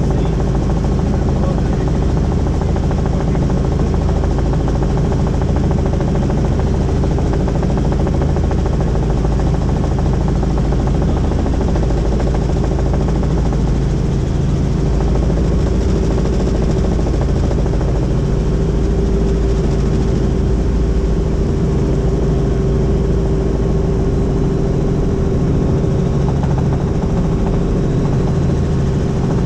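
Helicopter in flight: steady rotor and turbine noise with a constant hum, holding an even level throughout.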